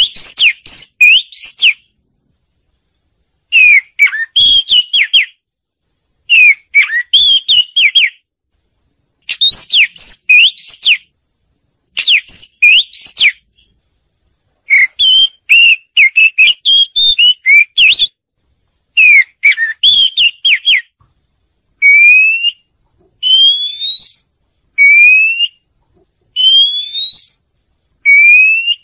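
Oriental magpie-robin song played as a lure recording for trapping or for stimulating birds to sing: repeated short phrases of varied whistles and trills with clean silences between them. Near the end the phrases give way to single rising whistled notes, about one every second and a half.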